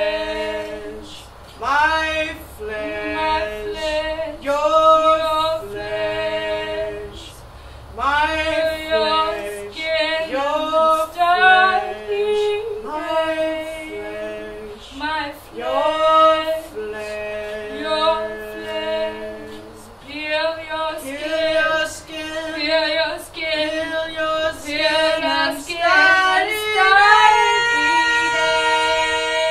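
Two women's voices singing wordless improvised lines together, short notes scooping up into held pitches. Near the end one voice glides up into a long held note over the other.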